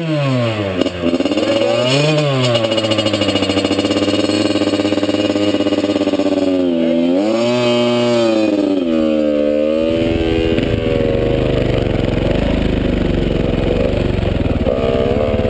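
Dirt bike engines running: idling with a throttle blip about two seconds in and another around eight seconds, then from about ten seconds the sound turns rough and low as the bikes ride off up the canyon trail under load.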